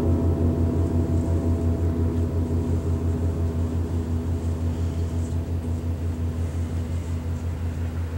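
Large Paiste gongs ringing on after being struck: a deep, pulsing hum that slowly fades, its higher overtones dying away in the first few seconds.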